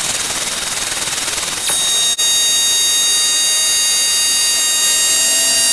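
Power grinder with an abrasive disc grinding metal, a loud steady hiss of grinding. After a brief break about two seconds in, the grinding continues with a steady high-pitched motor whine.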